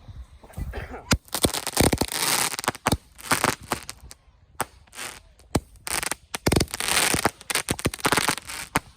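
Fireworks going off in quick clusters of sharp cracks and pops, starting about a second in, with short lulls between volleys.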